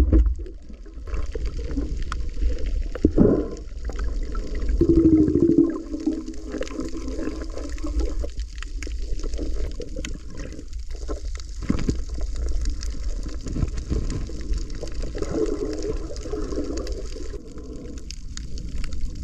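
Muffled underwater water noise from a camera held underwater: a steady low rumble with swells of gurgling now and then and scattered small clicks.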